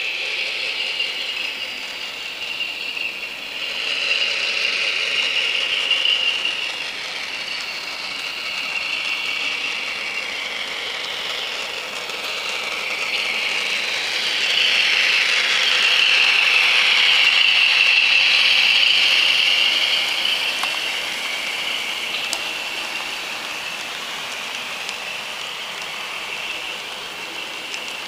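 Model train running on the layout's track: the locomotive's electric motor whines steadily over the noise of the wheels rolling on the rails. It grows louder about halfway through as the train passes close, then eases off.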